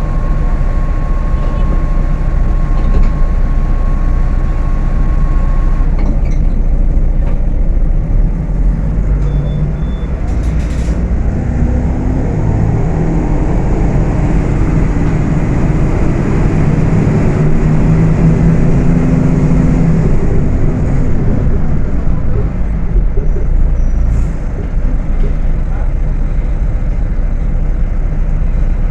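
Volksbus 18.280 OTS city bus engine running under way, heard from on board. It climbs steadily in pitch as the bus accelerates through the middle of the stretch, then drops back about two-thirds of the way through. A steady high beep sounds over it for the first six seconds or so.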